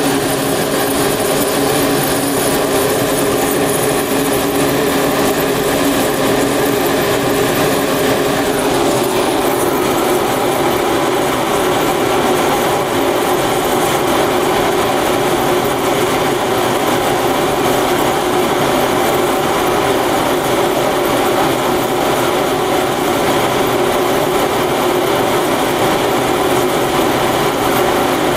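Cremation furnace burner and blower running steadily at full fire, a loud even noise with a constant hum in it. Its tone shifts slightly about nine seconds in.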